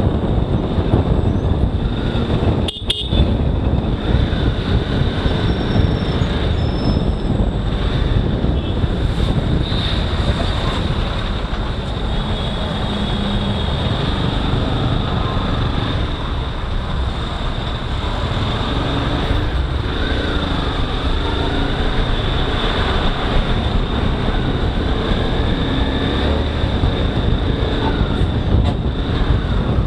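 Motorcycle riding through heavy road traffic: steady wind and road noise with the bike's engine running underneath, and other vehicles' horns sounding now and then. The sound drops out briefly about three seconds in.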